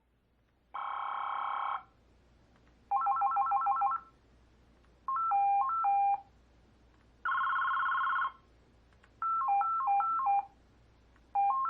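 NEC VoIP desk phone ringer previewing ringtones one after another as the list is scrolled: six short electronic ringtone samples of about a second each, separated by about a second of silence. Each is a different pattern, some warbling trills and some short stepping beep melodies.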